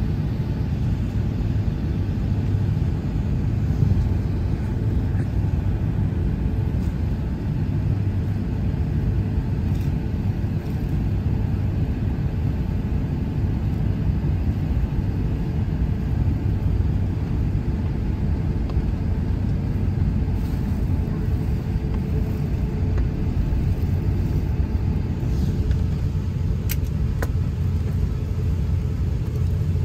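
Steady low rumble of an airliner cabin on the ground, the jet engines at idle and the cabin air system running, with a faint steady hum; a couple of faint clicks near the end.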